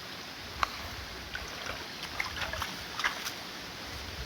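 Shallow pond water sloshing, with several small splashes and clicks over a low rumble.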